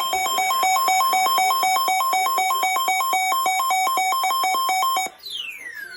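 Electronic alert tones: a buzzy beep alternating between a higher and a lower pitch about three times a second, cutting off about five seconds in. A falling electronic sweep tone begins right after.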